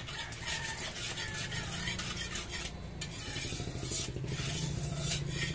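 A utensil scraping and stirring in a hot frying pan with oil, with a faint sizzle, over a steady low hum.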